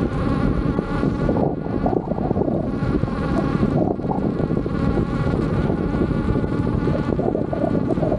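Veteran Sherman S electric unicycle riding at a steady speed: its hub motor gives a steady whine of several tones over a loud rush of wind and road noise.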